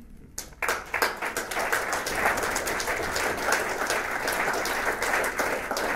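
An audience applauding, beginning suddenly about half a second in after a brief quiet: many hands clapping at once in a dense, steady patter.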